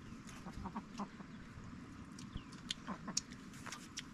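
Faint short animal calls, clucking-like, among scattered small clicks.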